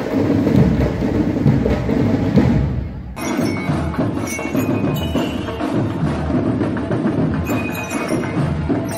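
A school marching band playing, with heavy drumming, cut off abruptly about three seconds in by different recorded music with chiming bell-like notes over percussion.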